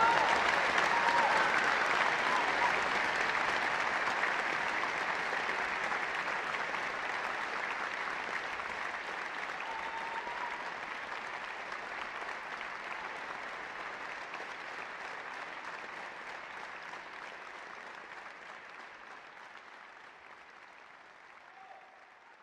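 Audience applauding, loudest at the start and slowly dying away until it fades out near the end.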